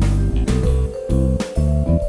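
Background music: an instrumental track with guitar, bass and a steady drum beat.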